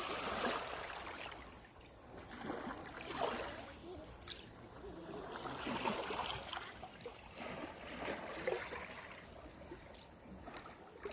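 Small Baltic Sea waves washing onto the shore, swelling and falling back every two to three seconds.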